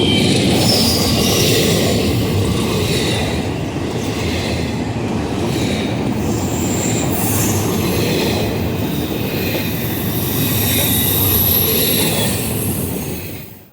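Freight train rolling past: a steady rumble of steel wheels on rail with high-pitched wheel squeals over it. The sound cuts off suddenly near the end.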